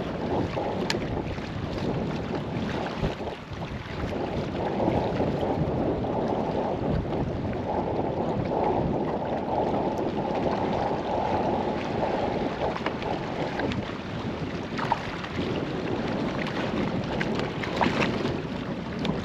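Wind on the microphone and choppy lake water slapping against a kayak hull, with a few short splashes near the end as a hooked bass thrashes at the surface beside the boat.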